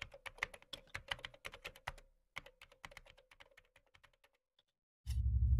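Computer keyboard typing sound effect: quick keystroke clicks, about ten a second, in two runs with a short break about two seconds in, the second run thinning out. Near the end a loud, deep rumble with music cuts in.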